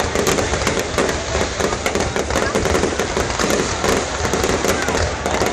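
Fireworks going off: a dense, unbroken crackle of rapid pops and bangs.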